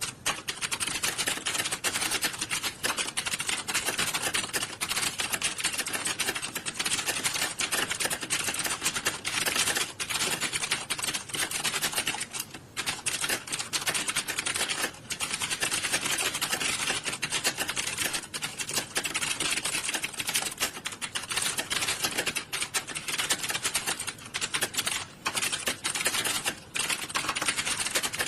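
Many computer keyboards being typed on at once, a dense, continuous clatter of key clicks with only brief lulls.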